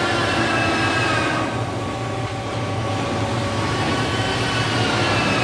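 Rustic surface-aging machine for wood running steadily, a continuous mechanical noise with a low hum and faint whining tones that slide slowly downward, easing slightly about two seconds in before building again.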